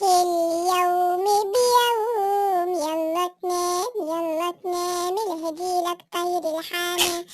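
A high-pitched, child-like voice singing an Arabic children's song in short melodic phrases with brief gaps between them.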